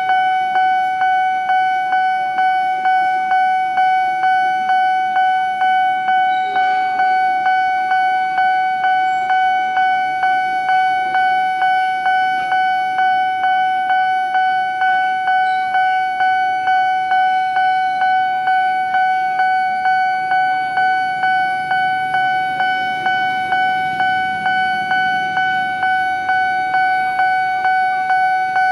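Railway level-crossing warning bell ringing: a single high ding struck over and over in a fast, even rhythm, the signal that the crossing is closed for an approaching train.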